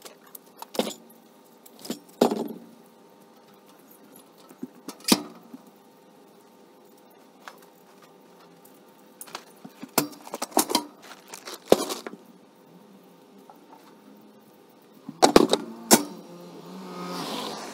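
Camping gear being set down on a kei truck's rubber-matted bed: scattered metallic clanks, clatters and knocks as a small metal stove and a wooden board are put in place, with a longer sliding sound near the end.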